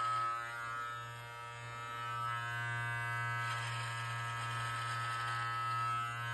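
Live Bearded MT-1 cordless beard trimmer with an 18 mm guard, running with a steady buzz as it is run through the sides of a beard. The buzz drops a little about a second in, then grows fuller again as the blade works through the hair.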